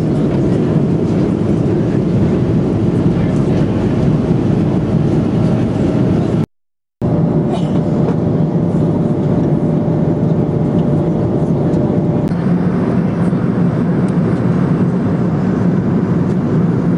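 Steady cabin roar inside an Airbus A330-243 in flight, from airflow and its Rolls-Royce Trent 700 engines, with a faint steady whine in it. The sound cuts out for about half a second at an edit about six seconds in.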